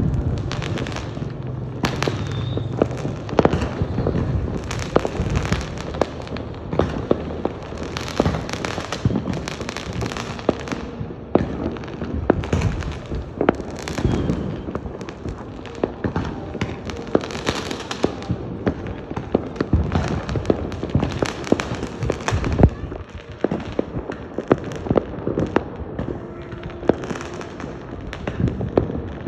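Fireworks going off without a break, a dense run of overlapping sharp bangs and crackles.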